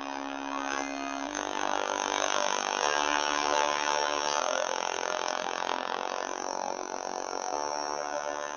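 Instrumental passage of dark music: sustained, buzzy droning chords that shift every second or two over a dense hissing texture.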